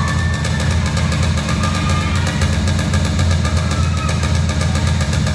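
Bass-heavy accompaniment music for a rhythmic gymnastics routine, played over an arena's sound system, with a fast steady beat and a faint melody line.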